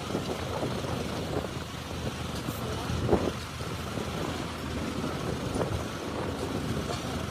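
Steady motor-vehicle noise.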